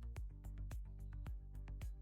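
Background music with a steady beat, about four drum hits a second over a held bass line.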